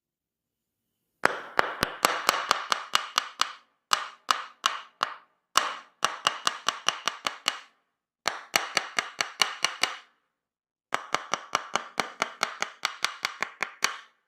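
Tok Sen massage: a wooden mallet rapidly tapping a wooden wedge held against the body, about five sharp, briefly ringing knocks a second. The knocks come in runs of two to three seconds with short pauses between.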